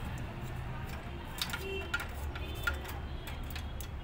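Hand screwdriver loosening a nut on a photocopier's metal cover bracket: light, irregular metallic clicks and ticks, several a second, over a steady low hum.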